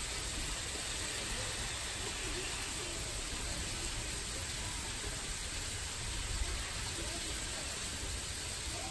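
A steady rushing noise with faint, distant voices.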